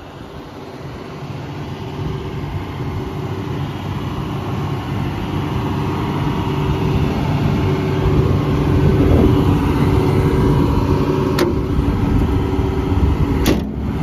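John Deere excavator's diesel engine running steadily, growing louder over the first several seconds as the microphone nears the engine compartment. Two sharp clicks near the end.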